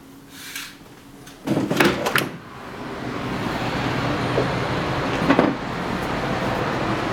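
A curtain swished aside, then a balcony door opened with a clatter of handle and frame about a second and a half in. The steady noise of heavy road traffic below swells in through the open door and holds, with one more knock near the middle.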